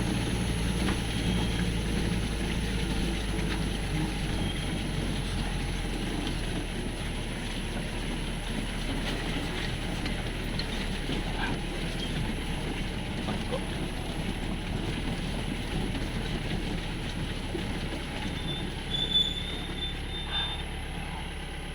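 Mahindra Thar jeep driving on a rough, slippery dirt track through forest: a steady low engine rumble mixed with the continuous rattle of the vehicle body on the bumps.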